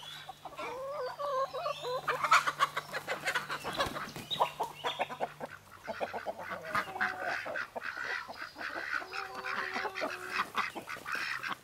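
A mixed flock of chickens and ducks calling, many overlapping clucks and quacks.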